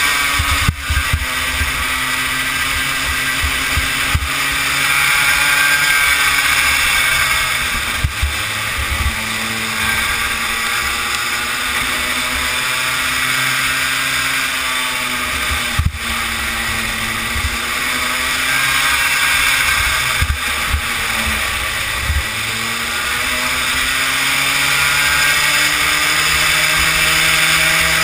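Kid kart's small engine heard from onboard at racing speed, its pitch rising and falling as the kart speeds up and slows, over a low buffeting rumble of wind on the microphone. A few sharp knocks cut in now and then.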